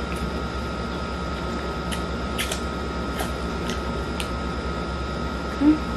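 Room air conditioner running, a steady hum and hiss that makes the room noisy. A few soft clicks of chewing sound over it, and a brief hummed 'mm' comes near the end.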